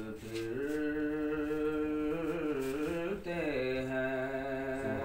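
Background devotional song: a voice holding long wordless notes, sliding in pitch about two to three seconds in, then holding a note again.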